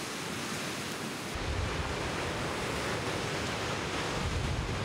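Sea surf washing over rocks, a steady rush of noise. About a second in, the sound changes to a deeper rumble of sea and wind.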